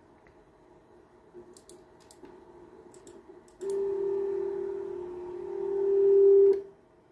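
Creality Ender 3 V3 SE's Y-axis stepper motor whining steadily for about three seconds as it drives the print bed forward after the print is aborted, getting louder near the end and stopping abruptly. A few faint clicks come before it.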